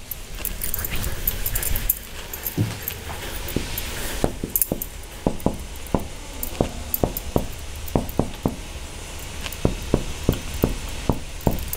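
Marker pen writing on a whiteboard: a quick, irregular run of short squeaks and taps from the tip as figures are written and circled, over a low steady hum.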